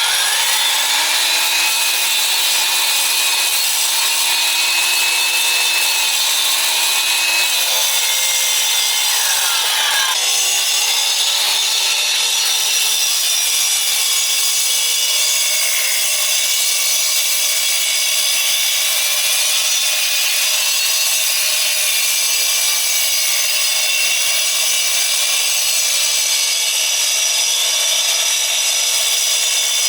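Vevor concrete saw cutting a control joint into a freshly poured concrete slab, running steadily under load. Its pitch dips and recovers about eight to ten seconds in.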